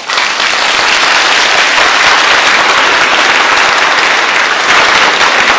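A large audience applauding, a loud, steady round of clapping that starts suddenly and keeps up without a break.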